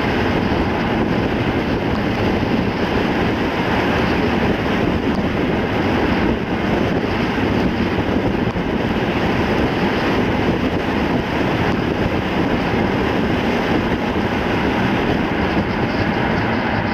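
Steady rushing road and wind noise of a car driving at a constant speed, with no engine note or other distinct sounds standing out.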